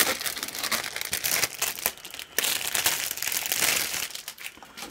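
Clear plastic bag crinkling as hands handle it over a model kit's plastic runners. The crackling is dense and continuous, and eases off near the end.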